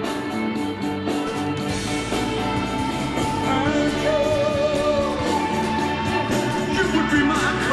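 A song playing: singing over a steady beat, with one long wavering sung note about four to five seconds in.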